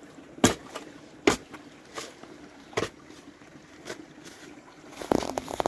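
Knocks from digging at a muddy, stony pond wall: five short, sharp knocks, irregularly spaced about a second apart, with a quick cluster of clicks near the end.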